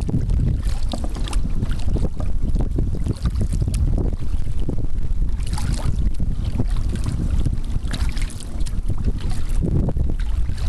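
Wind buffeting the microphone in a steady low rumble, with irregular splashes of a kayak paddle in choppy lagoon water.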